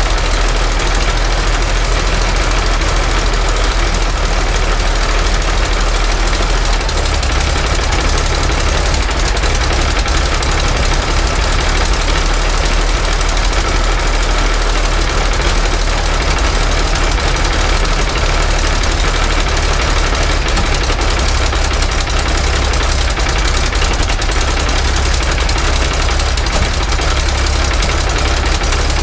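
Rolls-Royce Merlin XX V12 aero engine running on a trailer test stand with its propeller turning, a loud, steady beat; the beat's pitch steps up slightly about seven seconds in. This is the engine's first run after a rebuild.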